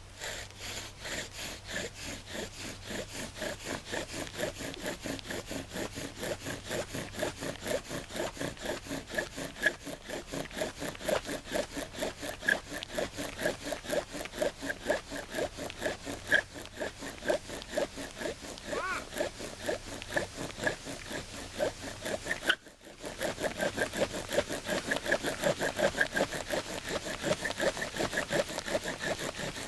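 Bow drill spindle grinding and squeaking in a wooden fireboard, one stroke of the bow about two to three times a second, stopping briefly about three-quarters of the way through and then carrying on. This is friction fire-lighting, working up an ember.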